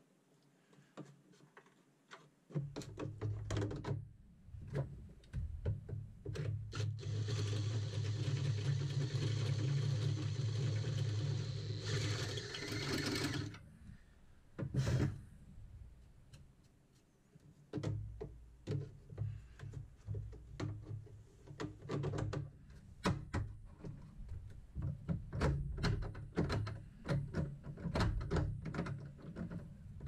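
Clicks, clunks and rattles of tools and metal shifter parts being handled and fitted, over a low hum. A steady mechanical whir runs for about six seconds near the middle and then stops.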